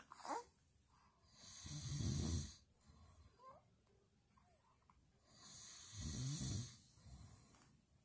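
An adult snoring: two long snores about four seconds apart, each a low snore with a hiss of breath.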